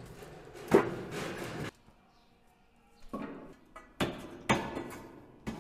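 Firewood being split with an axe: sharp wooden chops, one about a second in and three more close together near the end.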